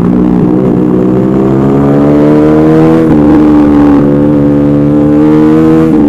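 Motorcycle engine under way, its pitch climbing slowly as the bike gathers speed, then dropping at a gear change about three seconds in and again near the end.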